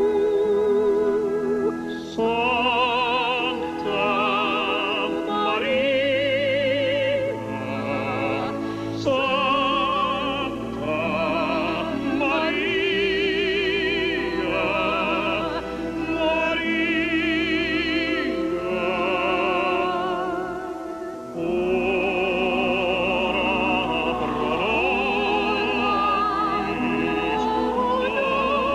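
Operatic singing with wide vibrato over a sustained instrumental accompaniment.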